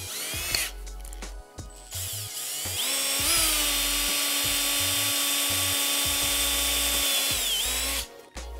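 Cordless drill with a 5/16-inch twist bit boring a bolt hole into the edge of laminated plywood. There is a brief spin-up just after the start, then a steady motor whine from about two seconds in that holds for about six seconds and cuts off near the end.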